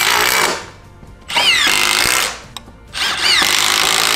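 Milwaukee M18 FUEL cordless impact driver driving self-drilling tech screws through a steel joist bracket into timber. It runs in three bursts of about a second each with short pauses between, its whine rising as the motor winds up.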